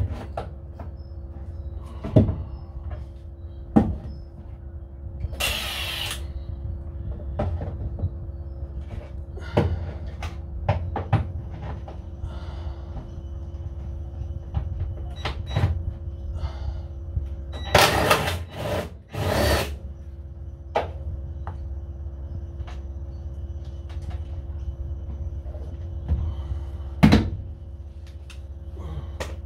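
Work on the front fender bolts of a 1975 VW Superbug: scattered clinks and knocks of tools on metal, a short hiss about five seconds in, and two short runs of a cordless impact gun a little past halfway.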